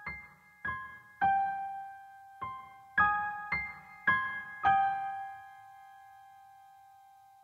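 Song intro played on piano: a slow run of about eight single notes, each struck and left to ring, the last one held and fading out slowly.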